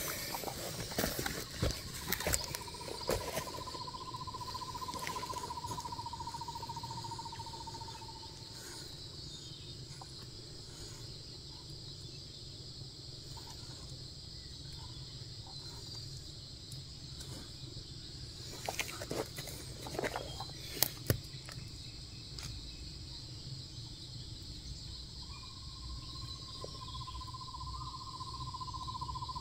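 Insects droning steadily, with a long, steady, slightly wavering whistle-like note held twice, for about six seconds early on and again near the end. A few light snaps and clicks come in the middle, from twigs being handled at the ground.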